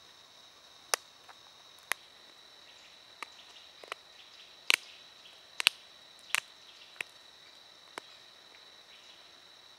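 Flint blade being pressure-flaked with a pointed flaker against a leather pad: about ten sharp clicks at irregular intervals as small flint chips snap off, the loudest about halfway through. A faint steady high-pitched whine sits underneath.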